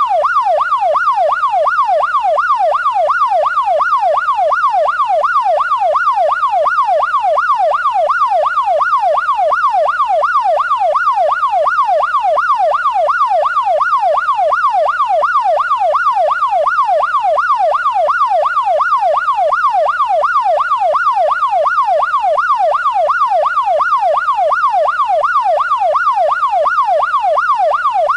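Police siren in a fast yelp, its pitch rising and falling evenly about twice a second.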